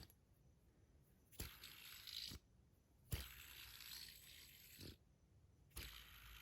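Stainless steel Sage fidget spinner flicked into a spin and stopped again by hand, three times. Each time there is a click, then a faint whirring hiss from the bearing for a second or two, cut off sharply.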